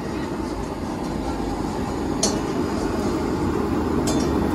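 Steady roar of gas stove burners flaming under clay handi pots, growing slightly louder, with a couple of short clinks about two and four seconds in.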